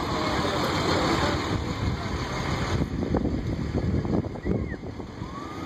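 A pickup truck driving slowly past, with wind buffeting the microphone; the truck's sound drops away about three seconds in.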